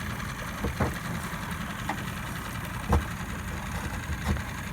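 A motor running steadily with a low hum, with a couple of light knocks over it, about a second in and again near three seconds.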